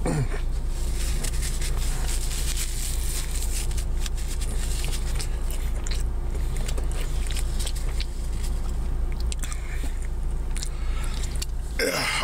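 Close-up chewing and biting of a soft cinnamon roll, with small wet clicks and crackles of the mouth. A steady low hum runs underneath, and a short falling vocal sound comes right at the end.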